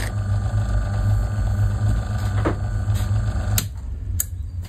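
Metal lathe running with a steady low hum. About three and a half seconds in there is a sharp click, and the hum drops as the lathe is switched off and runs down. Another click follows near the end.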